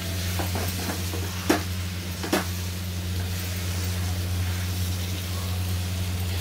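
A wooden spatula stirs potatoes and eggplant in tomato purée in a kadhai, with the masala sizzling in the pan under a steady low hum. The spatula knocks sharply against the pan twice, about one and a half and two and a half seconds in.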